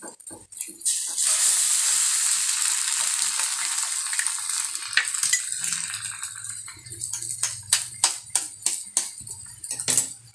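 An egg cracked and dropped into hot oil in a frying pan: a sudden loud sizzle about a second in that slowly dies away over the next several seconds. Near the end come a series of sharp knocks and clicks as the next egg is tapped against the pan to crack it.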